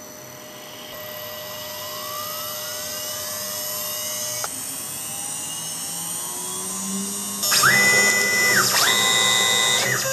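K6100 CNC router spindle spinning up on its variable frequency drive toward about 12,000 RPM, a whine rising in pitch over the first four seconds or so. From about seven and a half seconds in, the axis motors join with a louder whine that climbs, holds and drops twice as the machine moves the tool.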